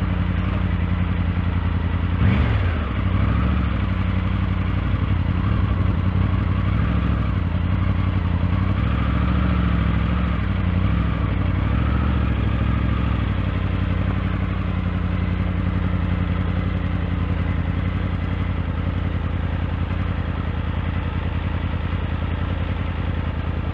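Triumph Tiger 900 Rally Pro's 888 cc inline-triple engine running steadily at low revs while riding. About two seconds in there is a brief louder burst and the pitch drops after it. The engine note rises and falls gently a little later.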